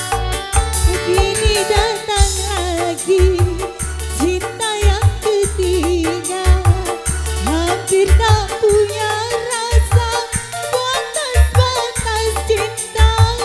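Live dangdut music from a single-keyboard orgen tunggal band: a steady, even drum-and-bass beat under a wavering, gliding lead melody.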